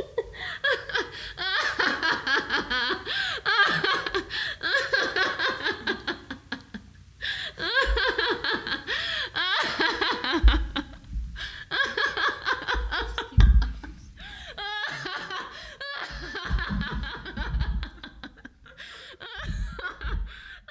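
A person laughing on and off, in long bouts broken by short pauses.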